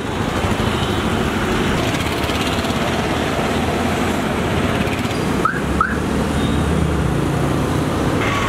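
Busy street traffic: a steady rush of engine and road noise, with two short rising chirps about five and a half seconds in.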